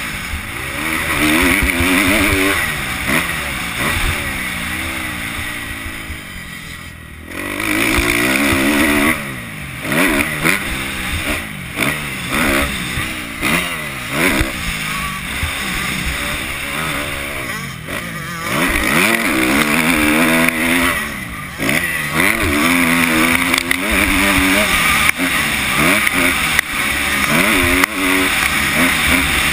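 2011 Kawasaki KX250F's four-stroke single-cylinder engine revving up and falling back again and again as the bike is raced on a motocross track, with a short throttle-off lull about seven seconds in.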